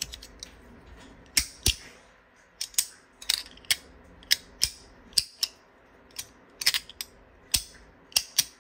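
Compoform Tesseract fidget slider clicking as its pieces are snapped back and forth hard by hand: about twenty sharp clicks at uneven intervals, often in quick pairs or threes.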